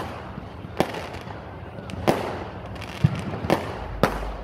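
Fireworks bursting overhead: about five sharp bangs at uneven intervals over a steady background of more distant fireworks.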